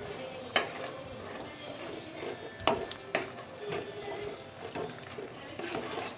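Metal ladle stirring and scraping goat intestines and masala around an aluminium pressure cooker pot as they fry, with a few sharper scrapes against the pot.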